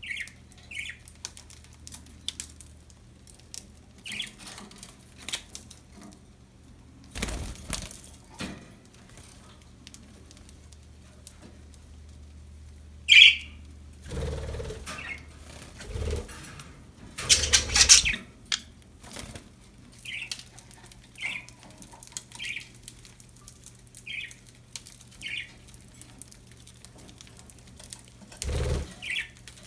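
Pet budgerigars: scattered short chirps and one loud call about 13 seconds in, with bursts of wing-flapping and rustling around 7 seconds and again from 14 to 18 seconds. Light clicks run throughout over a steady low hum.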